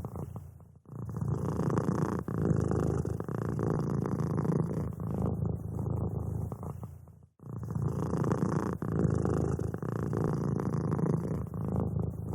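Domestic cat purring steadily, with two brief breaks: one about a second in and another a little past seven seconds.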